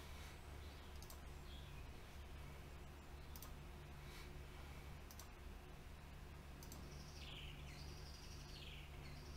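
Quiet room tone with a steady low hum and a few faint, scattered clicks. From about seven seconds in, a bird gives a few short, falling chirps.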